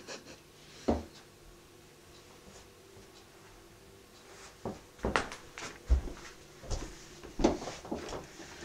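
Scattered soft knocks and clicks: one at the start, one about a second in, then a run of several, some with a dull low thump, from about five seconds in.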